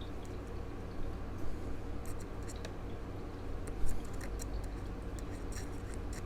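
Small metal pocket-knife parts being handled on a bench: scattered light clicks and ticks, with one louder tap about two-thirds of the way through, over a low steady hum.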